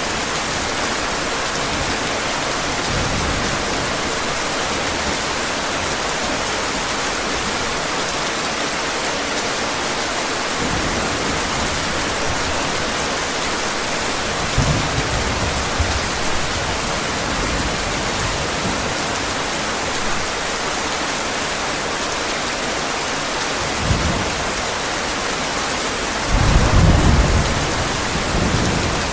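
Steady heavy rain with several low rumbles of thunder, the loudest near the end.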